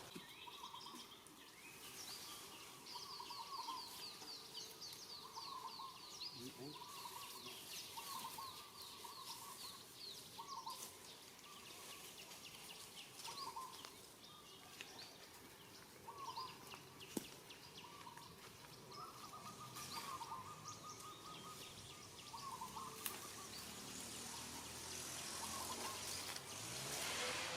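Repeated short animal calls outdoors, one every second or two, with a fast run of high chirps through the first half and scattered small clicks.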